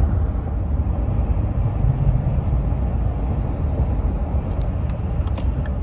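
Steady low rumble of a 2013 Ford F-150's 3.5-litre EcoBoost twin-turbo V6 and road noise with the truck under way, a little stronger about two seconds in. The engine has a stutter under hard acceleration that new spark plugs did not cure, which the owner suspects is in the fuel injectors.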